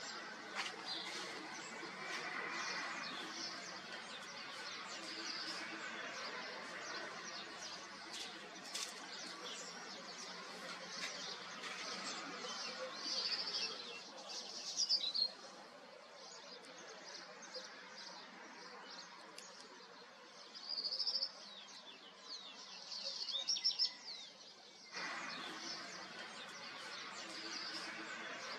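Small birds chirping and calling repeatedly over a steady background noise. The lower part of the noise falls away about halfway through and comes back abruptly near the end.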